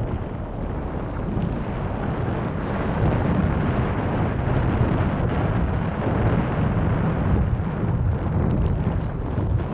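Wind buffeting the microphone of a 360 camera mounted on the roof of a moving car: a steady, low rumbling noise with no pauses.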